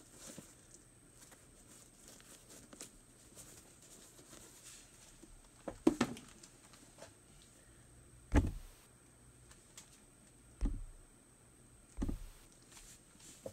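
A pair of Air Jordan 8 sneakers being handled over their cardboard shoe box. Faint rustling of tissue paper comes first, then four dull thumps in the second half as the shoes are set down and placed on the box.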